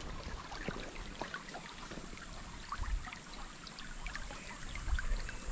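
Shallow creek water trickling over a pebble bed, with scattered small clicks and splashes.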